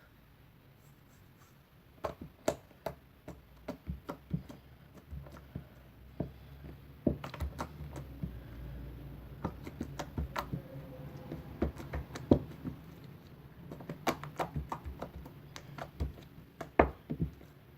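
Slime being squeezed and folded in the hands, giving many irregular sharp clicks and pops as trapped air bursts; the clicking starts about two seconds in.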